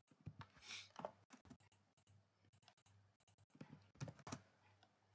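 Faint, scattered clicks of a computer mouse and keyboard, a few keystrokes and button presses, against near silence.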